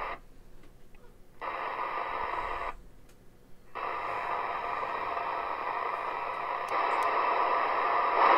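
Lafayette HB-940 CB radio's receiver hiss through its speaker, cutting out twice and coming back each time, with no pop as it mutes: the squelch pop has been cured by a capacitor across Q13.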